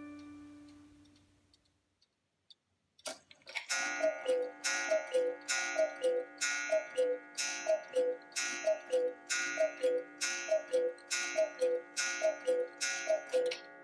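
Black Forest cuckoo clock calling the hour: about eleven two-note cuckoo calls, high then low, just under a second apart, each with a sharp wooden clack. A music-box tune dies away at the start, and there is a single click from the movement about three seconds in, before the calls begin.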